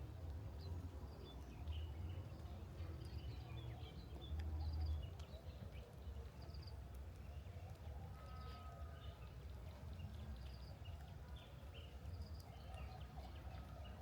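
Forest ambience: many short, scattered bird chirps over a steady low rumble.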